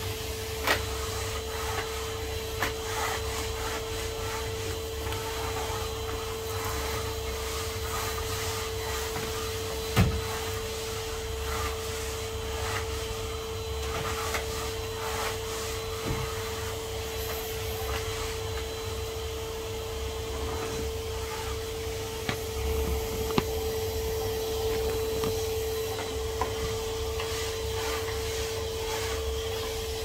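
Numatic Henry HVR200 620 W tub vacuum cleaner running steadily with a constant motor hum, with occasional knocks and scrapes as it is used, the loudest knock about ten seconds in.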